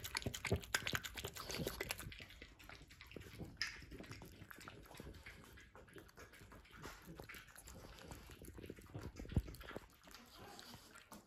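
A French bulldog, then a Yorkshire terrier, lapping and licking wet, yogurt-covered food from a bowl: rapid wet smacks and clicks, louder and busier for the first couple of seconds and softer after.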